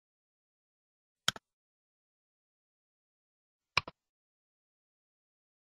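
Two sharp computer-mouse clicks about two and a half seconds apart, each a quick press-and-release double tick, with silence between them.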